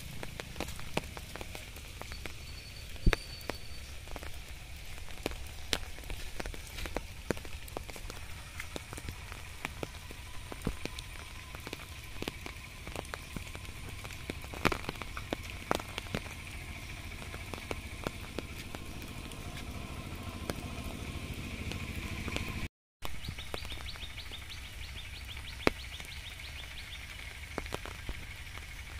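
Light rain falling, with scattered drops tapping on leaves and wet ground over a steady hiss.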